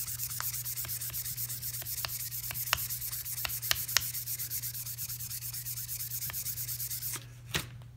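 Wet sandpaper rubbed rapidly back and forth by hand over a steel knife blade, about five strokes a second, wet-sanding the etched logo clean, with a few light ticks. The rubbing stops about a second before the end, followed by a single sharp tap.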